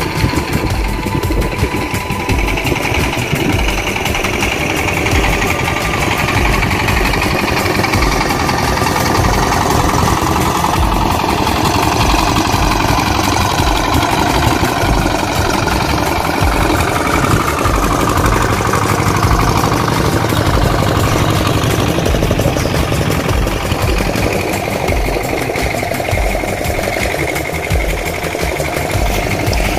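Boat engine running steadily, with a regular low throb.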